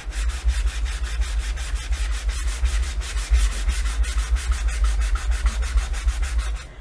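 A sanding block rubbed by hand in quick back-and-forth strokes over a painted wooden sign board, with a low rumble underneath. The sanding is distressing the piece, scuffing off the top layer of paint to expose the layer beneath.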